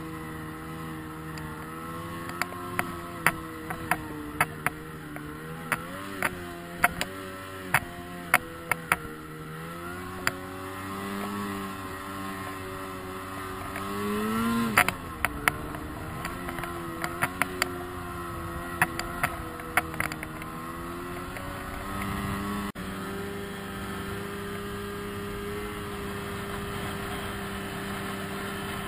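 Snowmobile engine running under a rider's throttle, its pitch rising and falling, with a sharp rev about halfway through. Many sharp clicks and knocks come in the first two-thirds as the sled bounces over the snow. After a sudden break near the end, a steadier engine note follows.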